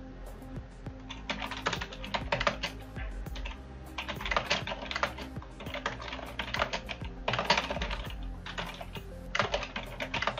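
Typing on a computer keyboard: runs of quick keystrokes in several bursts with short pauses between them.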